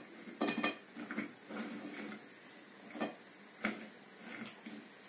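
A cat licking its paw and grooming its face: irregular soft wet clicks and short rustles, a few each second, none of them loud.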